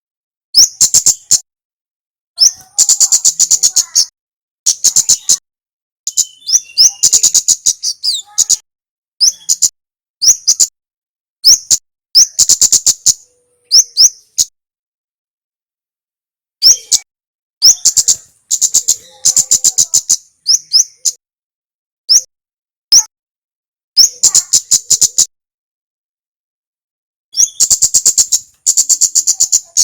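Kemade calling: bursts of rapid, sharp, high-pitched ticking notes. Each burst lasts from under a second to about a second and a half, with short gaps between them and two longer pauses, one near the middle and one near the end.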